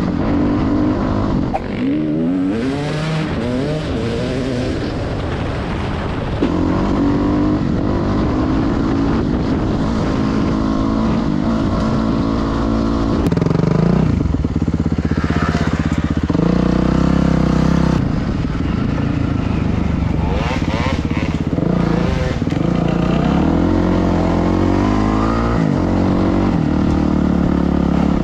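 Kawasaki KX450F single-cylinder four-stroke dirt bike engine heard from on board while riding off-road, revving up and falling back again and again as the rider accelerates, shifts and rolls off, with wind rushing over the camera.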